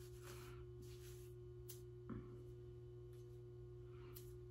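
Near silence over a steady low hum, with faint, soft rustles of fingers working through a synthetic wig's damp curls.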